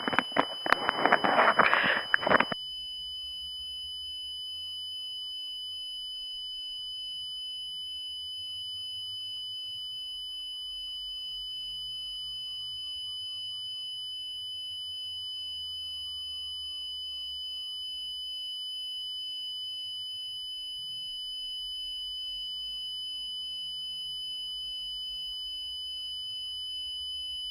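A brief burst of loud, noisy sound, then a steady, unbroken high-pitched electronic tone with a fainter, higher tone above it. It is the kind of continuous alert tone played in a mock emergency broadcast.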